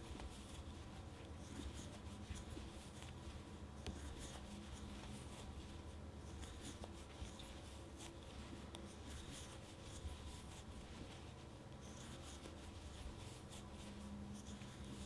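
Faint rubbing and small irregular clicks of a large wooden crochet hook pulling thick yarn through stitches as single crochets are worked one after another, over a steady low hum.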